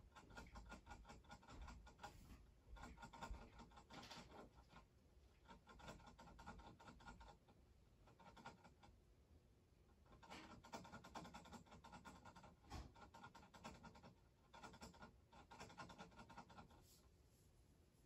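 Hamster licking the metal spout of a water bottle: faint, rapid clicking in spells of a few seconds with short pauses between.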